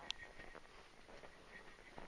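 Near silence: faint outdoor hiss, broken by one short, sharp, high-pitched sound just after the start.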